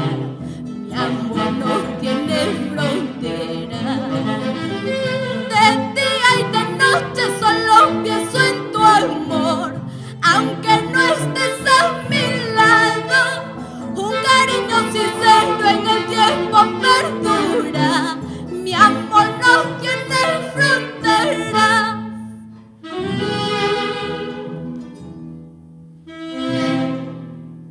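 Tunantada, the Andean folk dance music of Peru, played by a small ensemble with Andean harp and saxophone, in fast runs of notes. Near the end the playing thins to a couple of long held notes.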